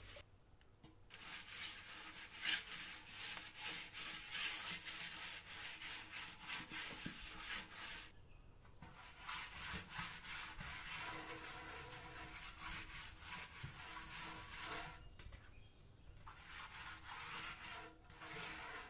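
A bare hand scouring the outside of a large metal pot coated in a brown paste, a steady run of quick scraping strokes. The scrubbing pauses briefly twice, about eight seconds in and again near the end.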